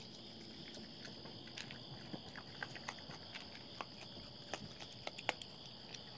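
Raccoons eating dry cat food from bowls: scattered sharp crunches and clicks, over a steady high chirring of night insects.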